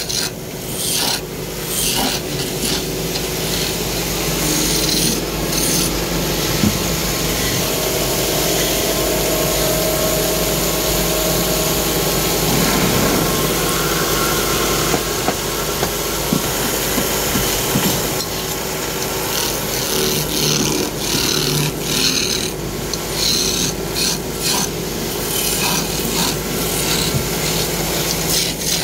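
Hand chisel cutting a spinning wooden blank on a belt-driven wood lathe: a rough, continuous scraping rasp in uneven strokes, over a steady hum from the lathe's drive.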